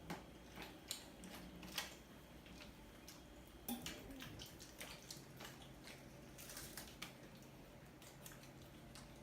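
Faint crunching of a chocolate wafer being bitten and chewed: scattered small sharp crackles and clicks, loudest about two seconds in and again near four seconds.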